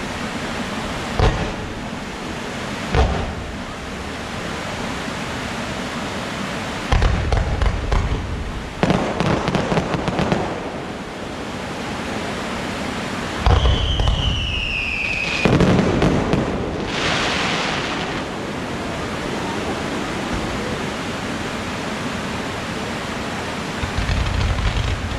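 Fireworks going off: several sharp bangs in the first few seconds, a stretch of rapid crackling around the middle, then a whistling shell whose pitch falls, followed by more loud booms. A steady rushing noise lies under it all.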